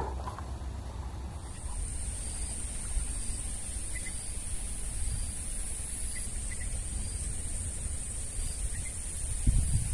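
Steady high-pitched insect buzz, starting about a second and a half in, over a low rumble that grows louder near the end.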